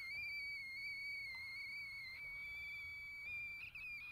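A man's long, high-pitched squeal of excitement, held on one slightly wavering note.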